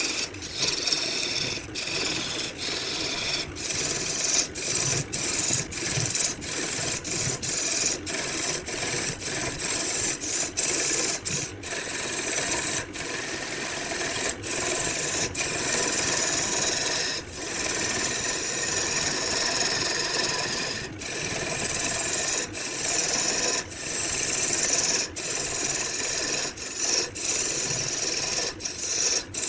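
A tool rasping against wood in a continuous scraping noise, broken by many brief gaps, about one every second or so.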